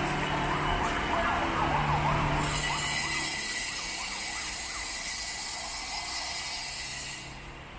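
Emergency-vehicle siren in a fast rising-and-falling yelp, about two sweeps a second, fading away over a few seconds. Behind it is traffic noise, with a loud hiss from about two and a half seconds in that cuts off near the end.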